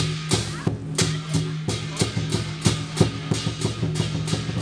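Chinese lion dance drum and cymbals playing a steady beat, about three sharp crashes a second over a low ringing tone.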